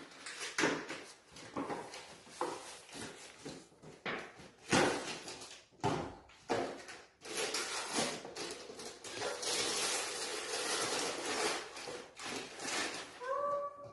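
Wrapping paper rustling and tearing as a present is unwrapped by hand: a run of short crackles and rips, with a longer stretch of steady rustling from about halfway through.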